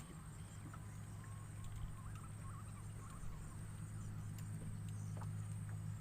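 Faint outdoor ambience: a steady low hum with a thin, steady high whine over it, and a few faint, short chirps in the first couple of seconds.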